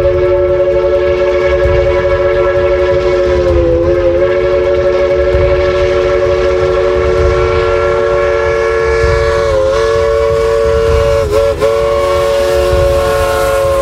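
Train horn sounding one long, unbroken three-note chord over a low rumble, its pitch dipping briefly about four seconds in and twice more near the end.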